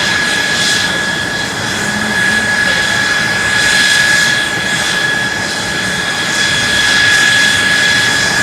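Mitsubishi F-2's General Electric F110 turbofan running steadily during a ground run: a steady high whine over a broad jet rush that swells and eases gently a few times.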